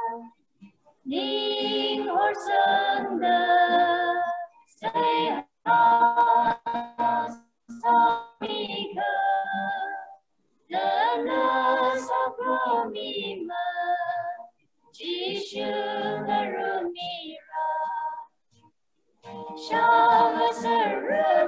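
A small group of young women and men singing a Christian song in Tangkhul, the women's voices to the fore. The singing comes in phrases, and the sound cuts abruptly to silence between them.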